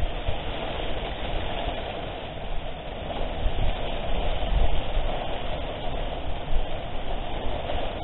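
Typhoon wind gusting against the microphone with rain: a continuous rushing noise with a heavy low rumble that swells and eases in gusts.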